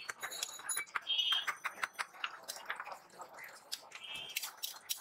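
Metal spatula clinking and scraping against a large wok of frying oil as puris are stirred and turned: a run of sharp, irregular clicks. Two short high-pitched tones sound about a second in and again near four seconds.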